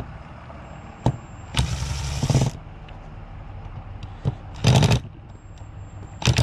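Cordless impact driver hammering in short bursts as it backs out small screws on a Yamaha Rhino 660 carburetor: one burst of about a second, then a shorter one and a third just starting near the end.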